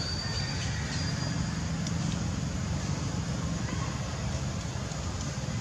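Steady outdoor background rumble with faint voices mixed in.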